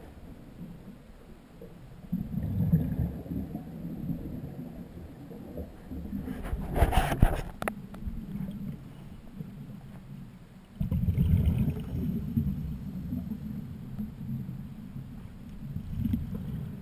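Scuba divers' exhaled regulator bubbles heard underwater: low bubbling rumbles in bursts a few seconds apart, like breaths, with a sharp knock about seven seconds in.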